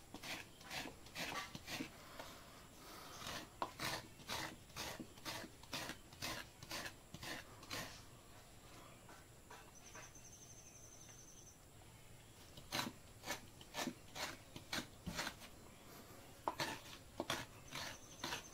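Coconut half being scraped against the serrated blade of a hand coconut scraper (kuruni), in rhythmic rasping strokes about two to three a second, grating out the white flesh. The strokes stop for a few seconds about halfway through, then start again.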